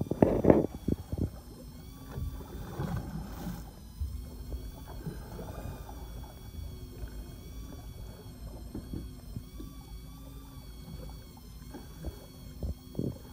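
Small fishing boat at sea: a steady low rumble with water lapping and slapping against the hull, and a few louder knocks near the start and around three seconds in.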